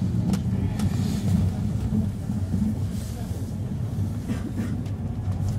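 Steady low rumble of a moving passenger train, heard from inside a coach of the electric-hauled train, with a few faint clicks over it.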